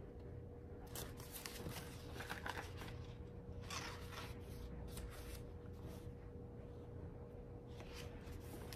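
Paper rustling as a hardcover book is handled and its pages turned, in a few short, faint rustles, over a faint steady hum.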